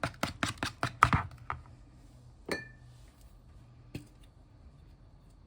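A utensil tapping quickly against a bowl while stirring sauce, a rapid run of clicks that stops after about a second and a half. It is followed by a single ringing clink against the bowl and one faint tick.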